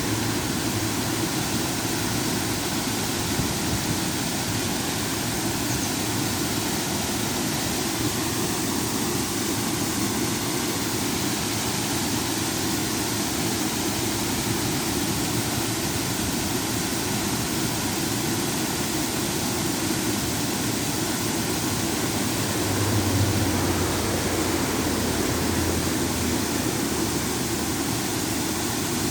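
Small river waterfall: water pouring over a drop in a steady, unbroken rush. A low rumble swells briefly about three-quarters of the way through.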